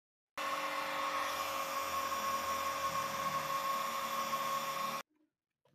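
A small electric motor whirring with a steady whine over a hiss, starting and stopping abruptly.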